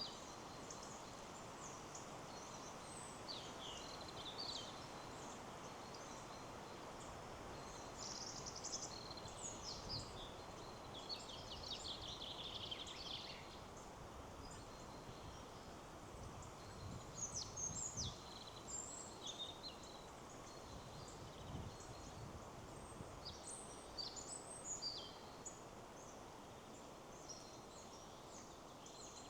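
Steady wind in the trees with many small birds chirping and singing in short high calls, the birds busiest about a third of the way in and again near the end.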